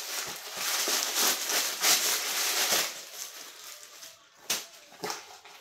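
Tissue paper rustling and crinkling for about three seconds as the stuffing is pulled out of a small purse, then two sharp clicks.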